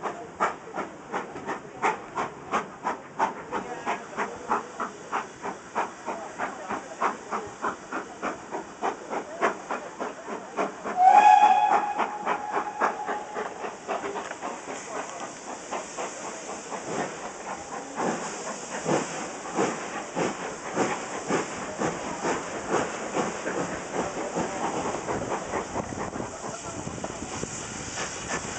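Steam locomotive working hard at the head of a passenger train, its exhaust chuffing in a regular beat of about two a second, heard from a carriage window behind it. About eleven seconds in, the steam whistle gives one loud blast that trails off over a couple of seconds; after that the chuffs grow fainter under a steady rush of train noise.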